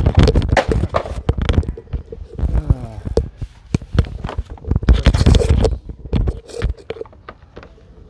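Handling noise on a phone's microphone: irregular rubbing, scraping and knocking as the phone is moved about, with a brief squeak near the middle.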